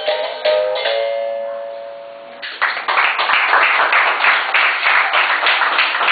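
Berimbau playing a capoeira toque with repeated struck notes, which stops about a second in and rings away. From about two and a half seconds in comes fast, steady hand clapping.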